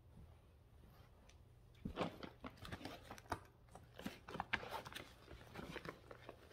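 Rustling, crinkling and small clicks of a cross-stitch project and its project bag being handled, starting about two seconds in.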